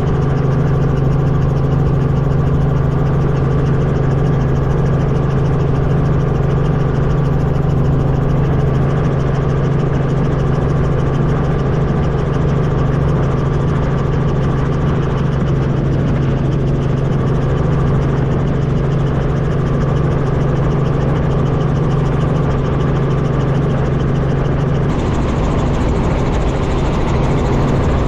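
Light helicopter in flight heard from inside its cockpit: steady engine and rotor noise, a loud low hum with a broad hiss over it. About three seconds before the end the sound shifts, the low hum weaker and the hiss brighter.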